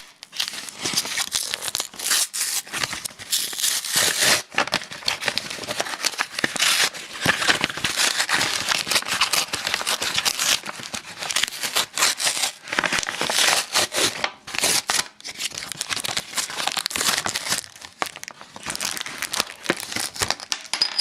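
Plastic blister pack of trading cards being torn open by hand: plastic crinkling and crackling, with ripping, in irregular spurts with short pauses.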